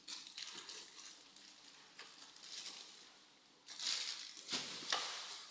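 Rustling and rubbing from the video doorbell being wiped clean by hand. It comes in several short bursts, the loudest stretch about four to five seconds in.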